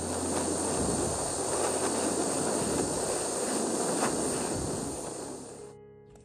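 Jeweller's soldering torch flame hissing steadily while it heats the joint of a gold chain, shutting off near the end.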